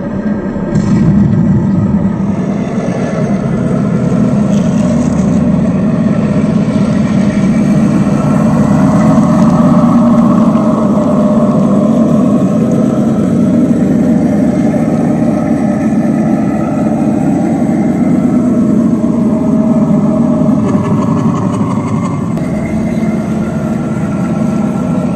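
Radio-controlled 1/10-scale model tank running: a steady, engine-like drone with a motor whine that drifts in pitch as it drives.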